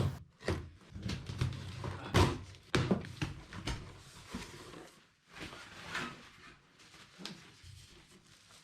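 Cardboard shipping box being handled and opened by hand: a string of irregular knocks and thumps, busiest in the first few seconds and sparser after a short lull.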